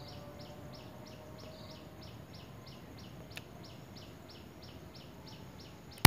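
Forest background with a high, even chirping call repeated about three times a second, and one faint click a little past the middle.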